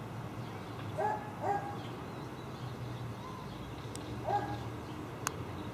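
Dog barking three times: two quick barks about a second in and another near the end, over a steady low hum.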